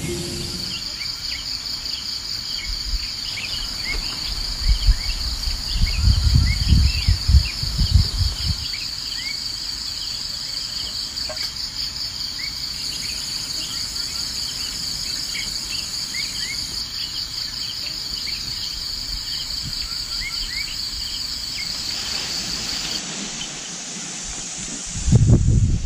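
A steady, high insect trill with short bird chirps over it. There are low rumbles in the middle, and the trill stops near the end, followed by a low rumble.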